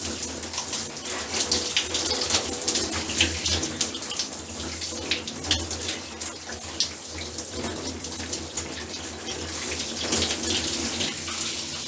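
Shower running, with water spattering irregularly as it hits a body and the floor of the stall.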